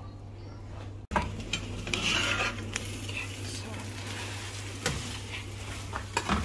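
Chopped bread dumplings sizzling in hot oil in a non-stick frying pan while a metal spatula stirs and turns them, with a few sharp clicks and scrapes of the spatula against the pan. The sizzling and stirring start abruptly about a second in.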